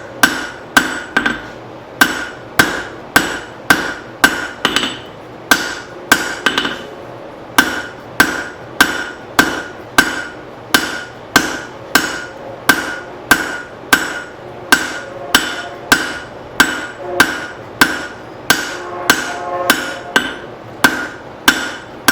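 Six-pound hand hammer striking hot leaf-spring steel on an anvil in a steady rhythm, about three blows every two seconds, each with a short metallic ring. The steel is being drawn out at the tip.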